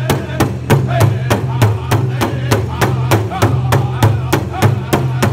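Powwow drum group beating a large hide-headed drum in unison with padded drumsticks, in a steady even beat of about three strikes a second, with the men's high-pitched group singing over the drum.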